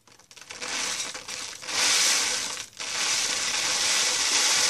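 Dry dewaxed shellac flakes poured from a folded sheet of paper into a glass jar: a continuous dry hiss of flakes sliding off the paper and landing on glass, with a short break about two and a half seconds in.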